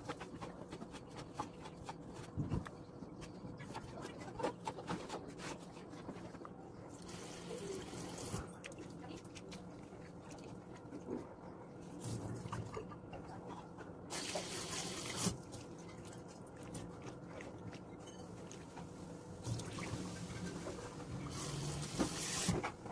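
Kitchen knife cutting salted vegetable on a wooden chopping board, a run of short knocks and clicks. From about a third of the way in, a kitchen tap runs in several short spells into a stainless steel sink as the cut vegetable is rinsed in a bowl.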